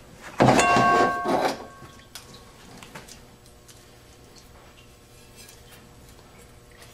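A steel clutch drum from a 6R80 automatic transmission clanking and ringing with a few clear metallic tones as it is picked up and handled, about half a second in. After that, light clicks and taps of metal transmission parts being handled.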